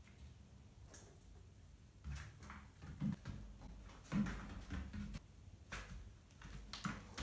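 Irregular soft thumps and scuffles from about two seconds in: a cat and a least weasel scrambling on a hard floor and knocking against a cardboard box as they play.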